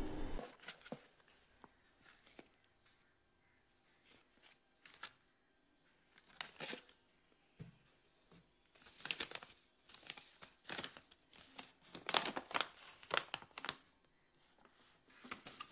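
Paper and packing material rustling and crinkling as hands take items out of a cardboard box, with sparse rustles at first. Then comes a denser spell of crackling paper rustle as a folded paper invoice is unfolded.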